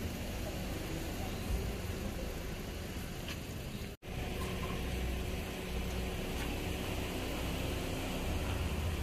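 Steady low rumble of outdoor background noise. It cuts out for an instant about four seconds in, where two recordings are spliced together.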